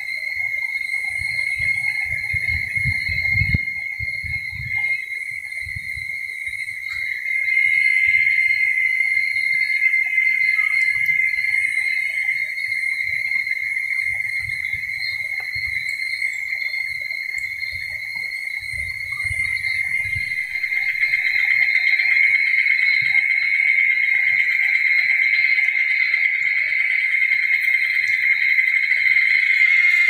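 Steady, continuous high-pitched drone of insects in the forest, swelling louder about a quarter of the way in and again past the two-thirds mark, with a few low rumbles in the first seconds and around the middle.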